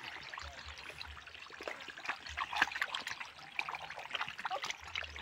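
Shallow water trickling, with many small irregular splashes and drips.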